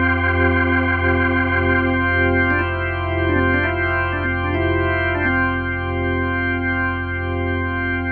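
Restored Hammond RT3 organ playing through a Leslie 122 speaker: a sustained chord over a steady bass pedal note, with some upper notes moving for a few seconds midway.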